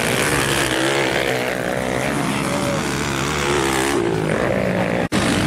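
Motocross dirt bike engine running on the track, its pitch wavering up and down as the throttle opens and closes. The sound cuts out for an instant near the end.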